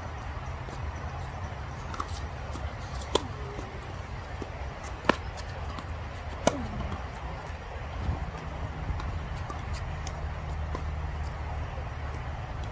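Tennis ball struck during a rally: three sharp pops about a second and a half to two seconds apart, over a steady low rumble.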